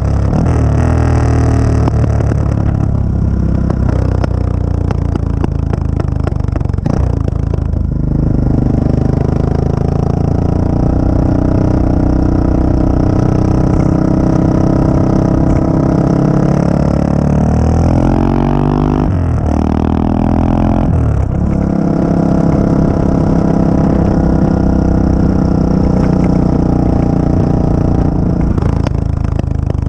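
Exhaust of the CCM DS 644's big single-cylinder engine, heard from just behind the silencer while the bike is ridden hard. It runs steadily, and in the middle it climbs in pitch through the revs, then drops sharply at gear changes.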